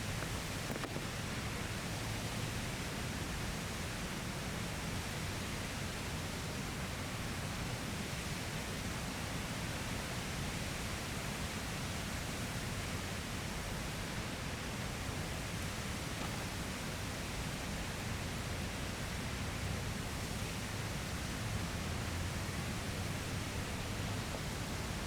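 Steady, unbroken rushing noise of a waterfall.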